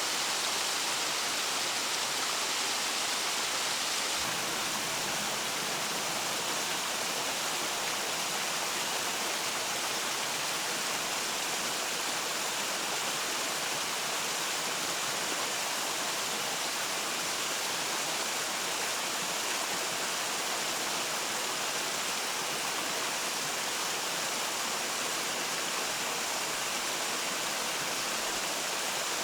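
Steady hiss of water, even throughout and strongest in the upper range.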